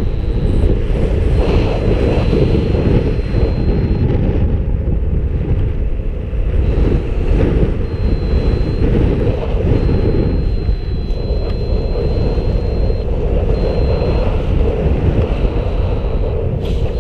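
Wind rushing and buffeting over the camera microphone as a paraglider comes in to land, with a thin high steady tone that cuts in and out. Near the end, a quick run of clicks and rustling as the pilot touches down on the grass.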